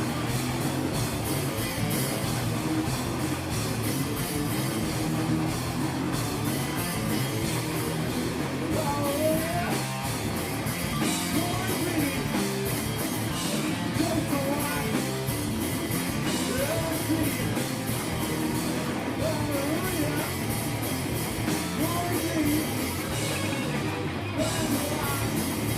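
Live rock band playing a song, with drum kit, electric guitar and singing.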